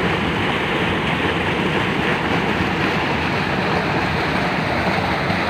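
Steady rush of flowing water, a stream or channel running close by, with no breaks or changes.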